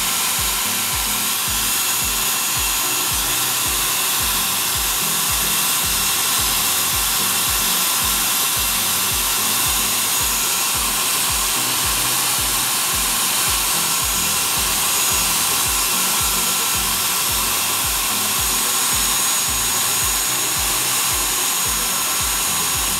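Handheld hair dryer running steadily, a rush of air with a thin, steady high whine.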